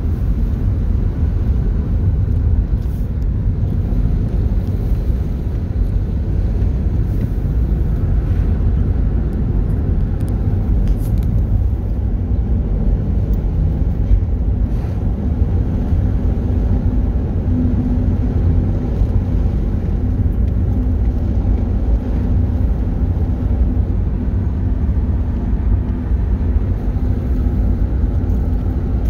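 Steady low rumble of a 1997 Subaru TS Type R cruising downhill at an even pace, engine and road noise heard from inside the cabin, with a faint even hum over it.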